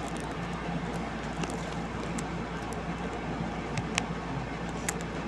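Steady background noise with a constant low hum, broken by a few faint sharp clicks, the loudest about four seconds in.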